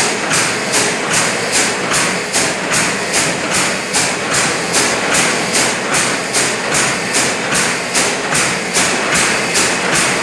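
Liquid filling machine running in steady production, cycling with a regular beat of short strokes about three times a second over a continuous mechanical drone.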